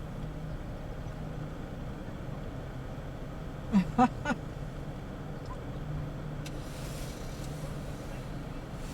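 Steady low hum of a vehicle's engine running, with two short pitched vocal sounds about four seconds in.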